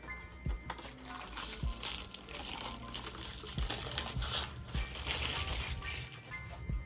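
Packaging crinkling and rustling as a Cricut Explore Air 2 cutting machine is unwrapped, over background music.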